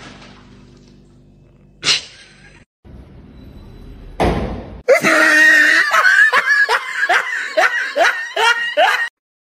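A person laughing hard in a run of high laughs, each falling in pitch, about two or three a second. A brief sharp knock comes about two seconds in.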